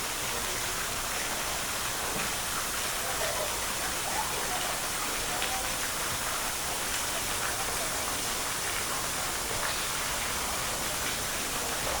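Steady hiss of rain falling, even and unbroken throughout, with faint distant voices underneath.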